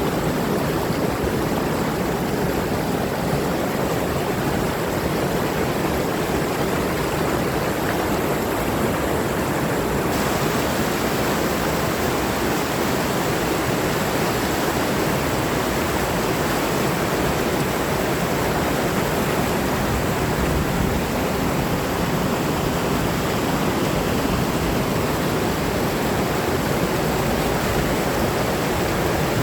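Steady rushing water, like a stream or waterfall, an even unbroken hiss. About a third of the way in its upper hiss suddenly grows brighter.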